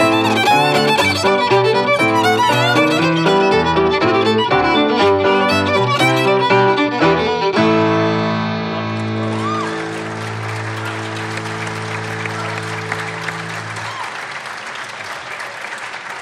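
Irish traditional reel played fast on fiddle, button accordion and piano, ending on a long held final chord about halfway through. Audience applause rises under the dying chord and carries on to the end.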